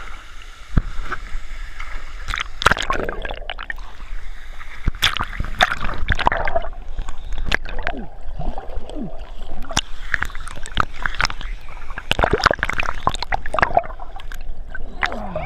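Water splashing and sloshing irregularly as people wade and move through a waterfall pool.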